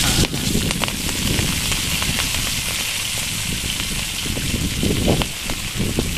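Fresh greens tipped into hot garlic oil in a pan, setting off a burst of sizzling that settles into a steady loud hiss of stir-frying, with scattered light clicks.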